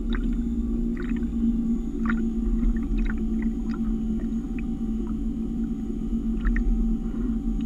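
Steady low hum of a spinning rotor sail and its drive motor, holding one constant tone, with small water splashes and laps against the boat's hulls scattered through.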